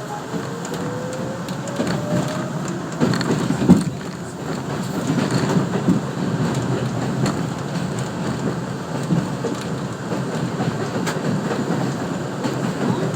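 New York City subway 7 train running on the track, a steady rumble of wheels on rail heard from inside the car. A motor whine rises in pitch over the first couple of seconds as the train picks up speed, and a few sharp knocks from the wheels and rail come about three to four seconds in.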